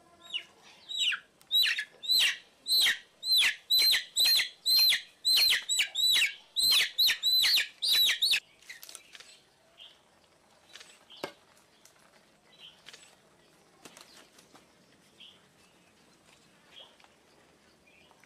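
A chicken squawking in distress as it is held down for a ritual sacrifice: loud, sharp, repeated calls, about two a second, that stop abruptly about eight seconds in. Afterwards only faint scattered taps remain.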